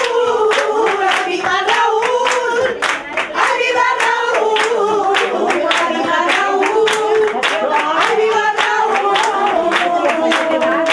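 A group of women singing together in unison to steady palmas, hand claps about two to three a second.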